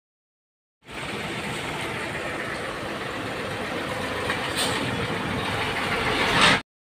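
Heavy dump trucks driving past, a steady noise of engines and tyres that grows louder as they come near, with a brief hiss past the middle. It starts abruptly about a second in and cuts off suddenly near the end.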